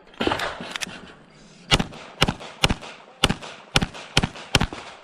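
A string of about ten pistol shots, fired mostly about half a second apart, with a short ring after some of them.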